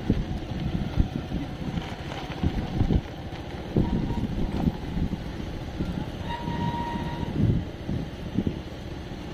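Motorcycle being ridden over a rough off-road track: the engine runs under irregular low thumps and jolts from the bumps, with one short steady high tone a little past halfway.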